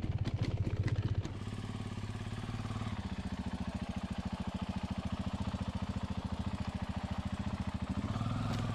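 Dirt bike engine running at low, steady revs with an even pulsing beat as the bike is ridden slowly over rocks. Clattering knocks come in the first second or so.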